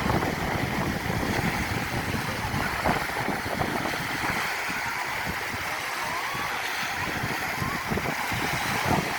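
Gusty wind buffeting the microphone over a steady wash of waves breaking on the shore. The low buffeting eases off in the middle and picks up again near the end.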